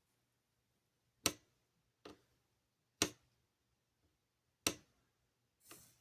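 Four sharp, unevenly spaced clicks of small hand tools at a repair bench during fine soldering work, followed by a brief scrape near the end.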